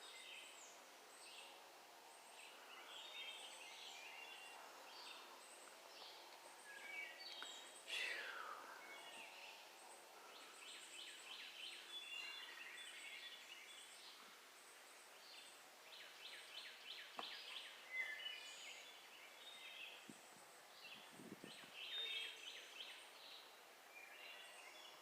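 Faint woodland birdsong: short chirps and trills from several small birds, with one downward-sweeping call about eight seconds in. A faint drone from a distant weed eater runs underneath for the first half.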